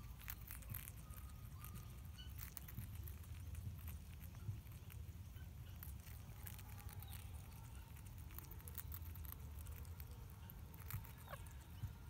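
Rainbow lorikeets pecking at and crunching pieces of bread on stone edging: faint, scattered small clicks and taps over a low steady rumble. A short falling bird call is heard near the end.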